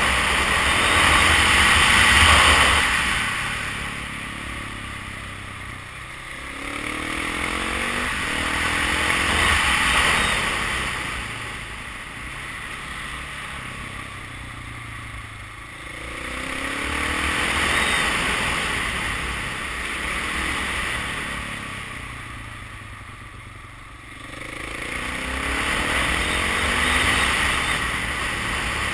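KTM 690 Enduro's single-cylinder four-stroke engine on the move, repeatedly picking up and easing off through a run of bends. Heavy wind rush on the microphone swells and fades with speed, loudest about every eight seconds.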